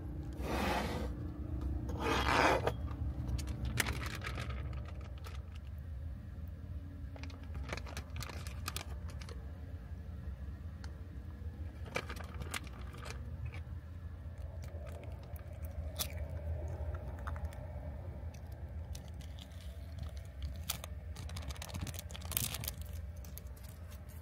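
Small handling sounds of food being served: two brief crinkling rustles in the first few seconds, then scattered light clicks and taps of chopsticks and dishes on a tray table, over a steady low hum.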